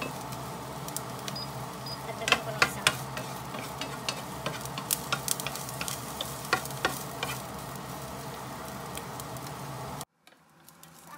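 Chopped onion and garlic sizzling in hot oil in a frying pan while a wooden spatula stirs them, with scattered clicks and scrapes of the spatula against the pan. The sound cuts off abruptly about ten seconds in.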